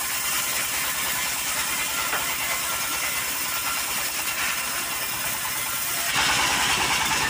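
Stationary diesel engine driving a homemade circular sawmill, running steadily with a fast, even low beat under a broad whirring noise. It grows louder about six seconds in.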